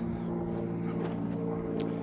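An engine running steadily, a low hum with a few faint clicks over it.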